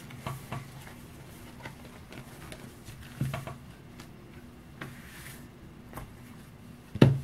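Fingers pulling apart and squeezing a Play-Doh egg: scattered soft taps and clicks, with a louder knock near the end.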